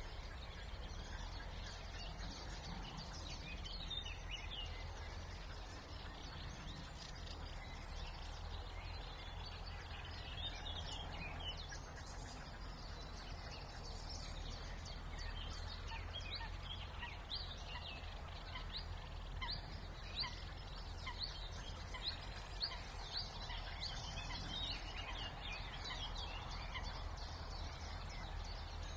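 Several songbirds singing, with many short, quick high notes overlapping throughout and thickest in the second half, over a steady low background rumble.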